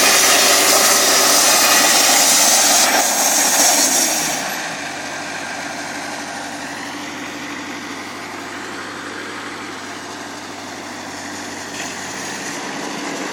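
Portable sawmill cutting lumber: the loud, noisy cut ends about four and a half seconds in as the engine note falls, and the sawmill's engine then runs on steadily at a lower level, idling.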